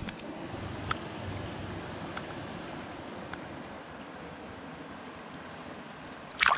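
Steady high-pitched insect trill, cricket-like, over the low rush of a shallow stream, with a few faint ticks and one short loud noise near the end.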